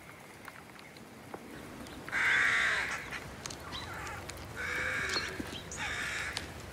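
A crow-like bird cawing three times, harsh calls about two, four and a half and six seconds in, the first the loudest, over faint snapping and rustling.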